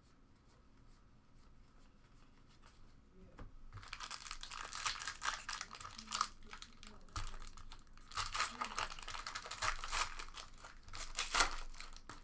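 Plastic wrapper of a sports trading card pack being torn open and crinkled, starting about four seconds in and going on in quick rustling bursts.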